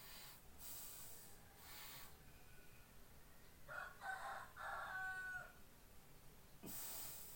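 A rooster crowing faintly: one crow starting a little under four seconds in, in two parts, ending on a note held for about half a second. A few soft hissy rustles come and go around it.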